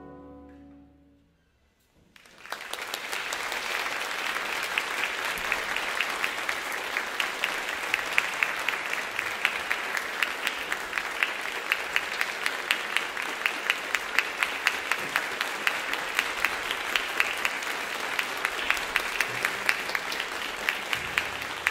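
The orchestra's final chord fades away. After a moment of near-silence, an audience bursts into applause about two seconds in, steady clapping with many sharp individual claps that carries on to the end.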